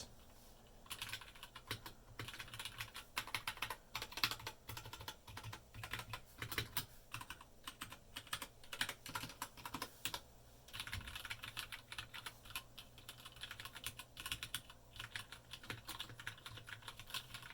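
Typing on an RK61 Royal Kludge 60% mechanical keyboard with Outemu Brown tactile switches: a quick, irregular patter of key clicks that starts about a second in, with a brief pause about ten seconds in.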